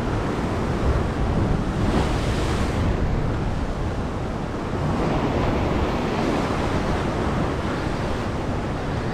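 Ocean swell surging and washing white over a rock ledge just below, a steady rushing noise, with wind buffeting the microphone.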